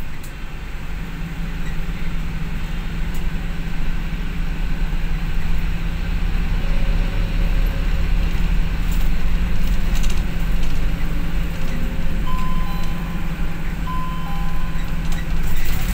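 Steady engine hum and road rumble of a moving bus, heard from a seat inside the cabin. A couple of faint short beeps come in near the end.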